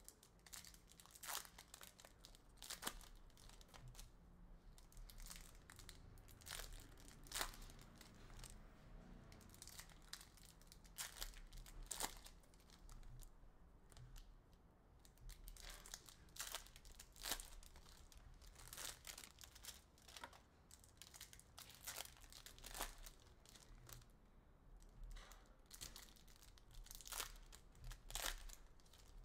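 Upper Deck hockey card pack wrappers being torn open and crinkled by hand, with irregular sharp rips and crackles one after another.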